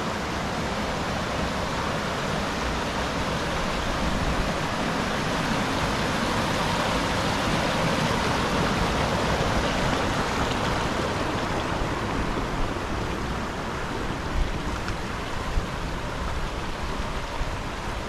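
Rushing water of a rocky hill creek pouring over small cascades, a steady rush that grows a little louder partway through and then eases back.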